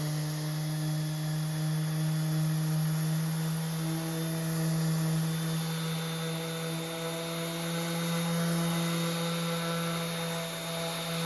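Bosch ROS20VSC 5-inch random orbit sander running steadily while sanding a thickly painted wooden surface: a constant motor hum with a slight drift in pitch over a sanding hiss.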